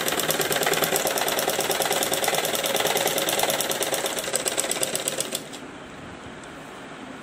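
Sewing machine stitching at a rapid, even rate, its needle ticking steadily, then stopping about five and a half seconds in.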